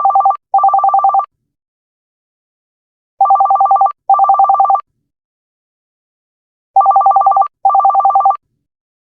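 Electronic office-telephone ringtone: a fast two-tone warbling trill rung in pairs, 'tring tring', with a pair about every three and a half seconds. The first pair is already under way at the start.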